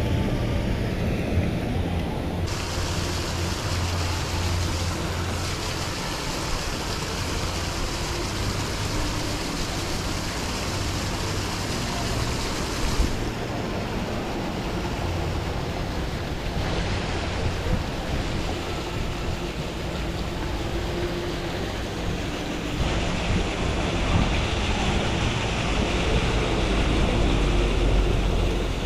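Pond aerators churning and splashing the water, a steady rushing noise, with a low steady hum underneath.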